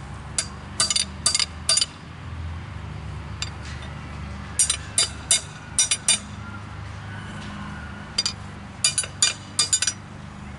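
A hammer striking a bent metal tie rod laid on a cement-filled iron post to straighten it: sharp metallic blows in three quick runs of four or five strikes each.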